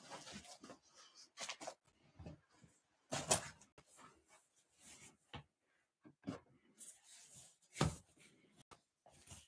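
Rustling and knocks of a person moving about right by the microphone as she settles in front of it, irregular, with two sharper bumps, one about a third of the way in and one near the end.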